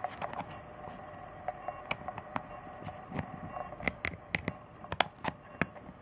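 Irregular sharp clicks and taps of a digital oven thermometer's plastic case being handled, fingers pressing and picking at its front panel, the loudest click about five seconds in.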